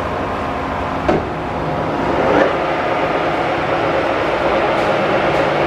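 Graziano 20-inch swing lathe's headstock gearing running, with a knock from the controls about a second in. The spindle then speeds up in reverse with a brief rising whine and runs on louder and steady.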